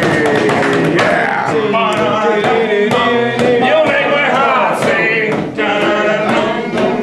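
Music with several male voices singing together over sharp percussive hits.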